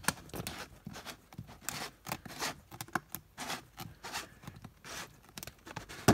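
Plastic threaded ring of a whole-house sediment water filter housing being screwed back on by hand: a run of irregular short scraping clicks, a few a second, from the plastic threads and the hand on the ribbed ring, with a sharper click at the end.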